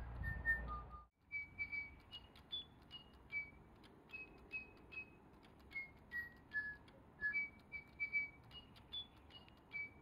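DigiBirds electronic toy birds whistling a tune: a run of short, clear, pure-toned notes hopping up and down in pitch, a few per second. A low rumble under the first second stops abruptly.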